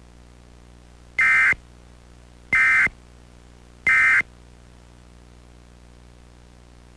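Emergency Alert System end-of-message data signal: three short, identical buzzy bursts of digital FSK tones, about a second apart, marking the end of the alert.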